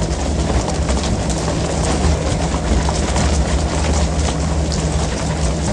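Fishing boat's engine running with a steady low hum under a constant wash of rushing water, with scattered faint clicks and slaps.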